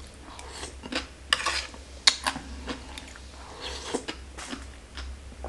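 Close-miked mouth sounds of a person chewing papaya salad: wet chewing and lip smacks, with a few sharp clicks of cutlery.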